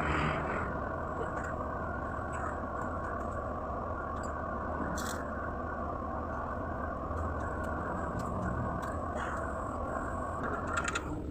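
An engine running steadily at idle, with a brief sharp click about five seconds in.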